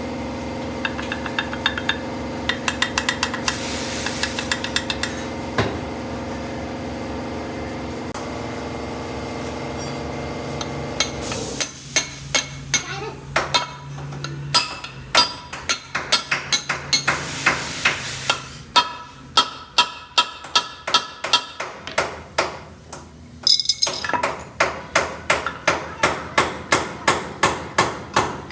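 A steady machine hum with some fast ticking for about the first eleven seconds, which then stops. Repeated hammer blows on metal follow, about two a second, with a short pause partway through.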